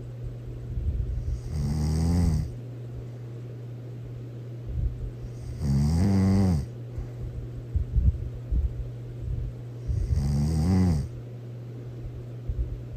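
Loud snoring: three drawn-out snores, each about a second long and roughly four seconds apart, over a steady low hum, with small crackling sounds between them.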